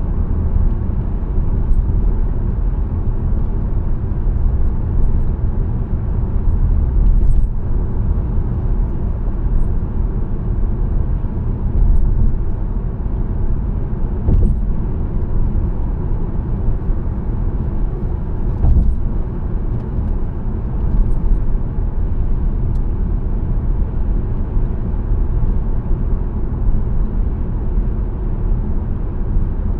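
Car driving along a road: a steady low rumble of tyres and engine, with a few brief knocks.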